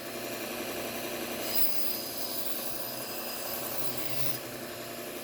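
Bucktool belt grinder running at slow speed with a steady motor hum, as a serrated knife edge is run lightly along its fine Trizact abrasive belt. The grinding hiss is heard from about a second and a half in until near the end.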